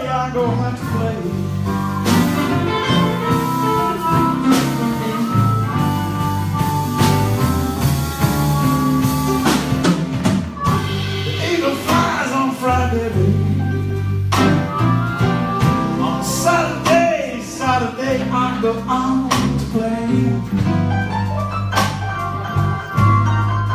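Live blues band playing a slow blues: electric guitars over a drum kit keeping a slow beat.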